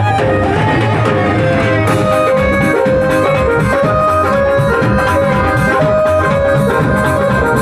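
Instrumental interlude of a Punjabi devotional song: a melody of long held notes over a steady drum beat, with no singing.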